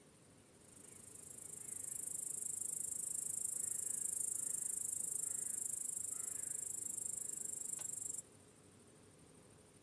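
Cricket trilling: a very high-pitched, continuous buzz that swells in over about a second, holds steady, and stops abruptly about eight seconds in.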